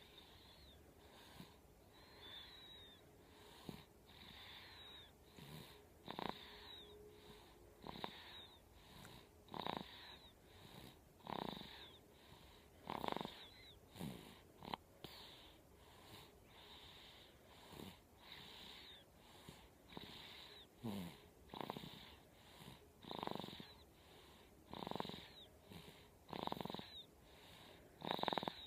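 A sleeping pet snoring, breath after breath, with a high wheezy whistle on many of the breaths, about one every one to two seconds.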